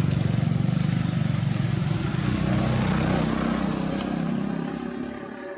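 Motorcycle engine running with a steady low drone, easing off toward the end and then cutting off abruptly.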